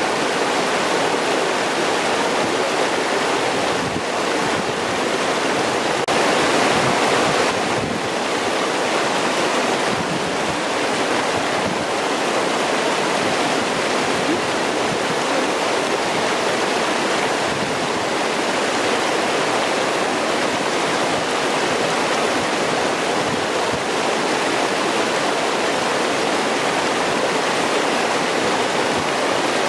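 Clear mountain stream babbling and rushing over rocks: a steady wash of flowing water, briefly a little louder about seven seconds in.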